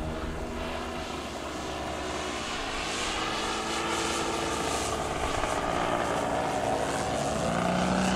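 Propeller engine of a radio-controlled aerobatic model airplane running as it flies past, its pitch shifting and slowly bending, growing louder toward the end.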